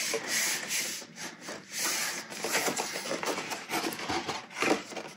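Cardstock paper being folded and handled: the box's flaps rubbing and sliding against each other and the work mat in an irregular scraping rustle.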